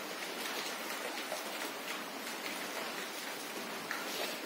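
Steady rain falling, an even hiss with scattered faint ticks.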